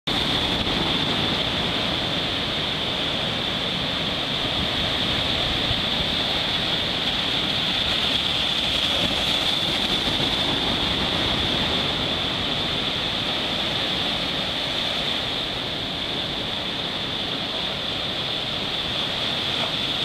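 Heavy typhoon swell breaking and washing in whitewater over a rocky jetty: a steady, unbroken rush of surf. A constant high hiss runs through it.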